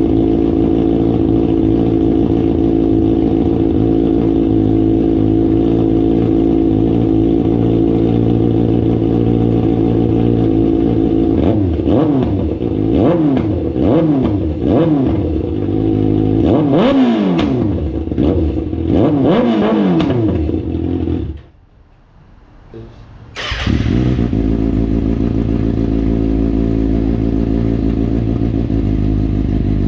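2024 Kawasaki ZX-6R's 636 cc inline-four engine running steadily, then revved in a series of throttle blips that rise and fall in pitch. The sound cuts out for about two seconds, then the engine runs steadily again.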